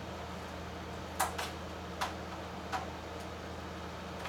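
Four sharp clicks and taps in about a second and a half as cable connectors are handled and plugged in at the back of home-theater equipment, over a steady low hum.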